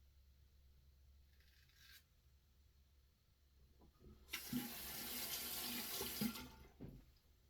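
A bathroom sink tap runs for about two seconds, turned on a little past the middle and shut off again, with a few knocks as it stops.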